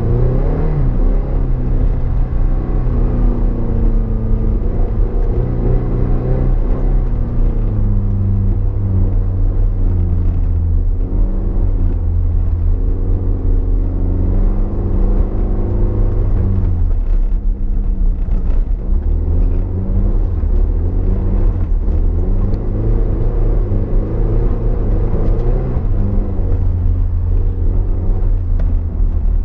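Toyota MR2's mid-mounted four-cylinder engine heard from inside the cabin while driving on track, its note climbing and falling back again and again as the revs change, with a clear drop about two-thirds of the way through.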